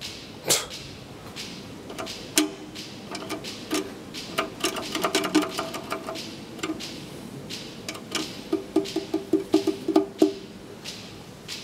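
Clicks and a low buzzing tone in short pulses as an elevator landing call button is pressed repeatedly, with the buzz pulsing rapidly, about six times a second, near the end. A sharp click about half a second in is the loudest sound.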